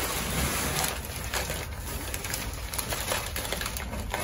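Crumpled packing paper rustling and crinkling in a cardboard box as a large porcelain figurine is worked loose and lifted out, a continuous crackle of many small clicks.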